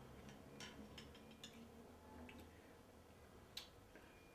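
Faint, irregular clicks of a fork against a china plate while eating, over quiet room tone.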